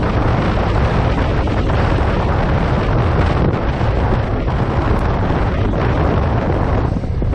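Wind buffeting the microphone over a 2015 Yamaha FZ6R's inline-four engine running steadily while the motorcycle is ridden at speed. The sound drops briefly near the end.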